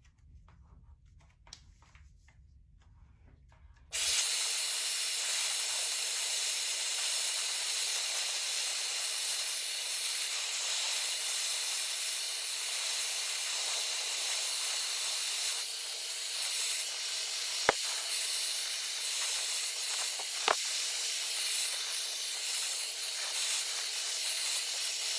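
A Tideway hair dryer switches on about four seconds in and then blows steadily, a loud rush of air over a steady hum. Two short clicks come in the second half.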